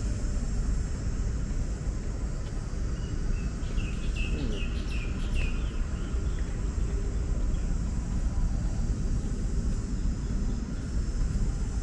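Steady outdoor background rumble and hiss, with a small bird giving a quick run of high chirps between about three and five and a half seconds in.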